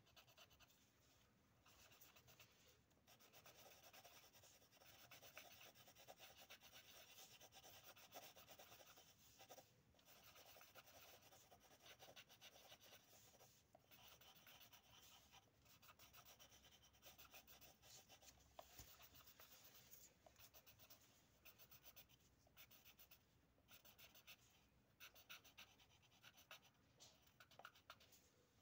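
Faint scratching of pencils on paper as two people draw, in runs of strokes broken by short pauses.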